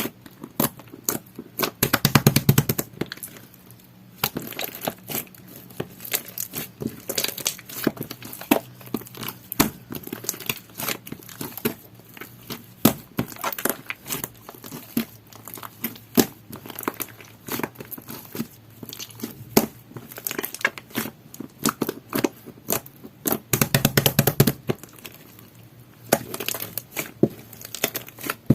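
Clear, jelly-textured slime being squished, stretched and pressed by hand, giving a run of irregular sticky clicks and small pops, with two louder, denser bursts of squelching about two seconds in and near the end.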